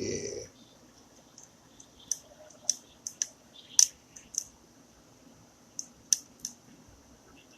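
Irregular sharp clicks and taps, about a dozen over several seconds, from small laptop parts being handled and fitted during reassembly of a Dell Latitude E6430.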